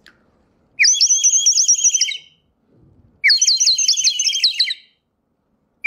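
Water-filled clay bird whistle blown in two bursts of about a second and a half each: a high, rapid warbling trill that sounds like birdsong. Each burst opens with a short rising note, and a third begins right at the end. The water inside the clay bird is what makes it warble.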